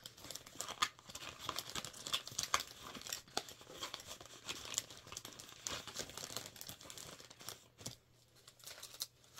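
Packaging crinkling and rustling in the hands as items are handled and packed, a dense run of irregular crackles that thins out near the end.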